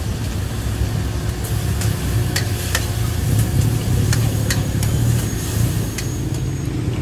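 Busy street ambience: a steady low traffic rumble, with a run of sharp clicks or taps through the middle.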